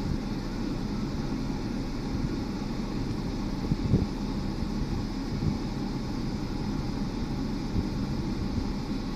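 Steady road and engine noise heard inside a moving car's cabin: a low rumble with a few short knocks, the strongest about four seconds in.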